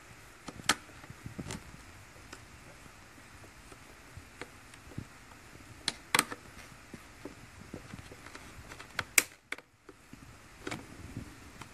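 Pliers and hand tools clicking and knocking against plastic engine fittings and a hose clamp while a hose is worked off its port, a handful of sharp separate clicks over a quiet background.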